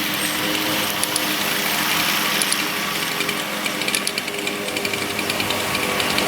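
Gas chainsaw running steadily while making the felling cut through the trunk of a dead oak, with scattered ticks over the engine note.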